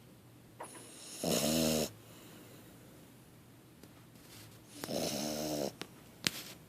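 A French Bulldog puppy snoring: two loud, pitched snores about three and a half seconds apart, each lasting under a second. Two short sharp clicks follow near the end.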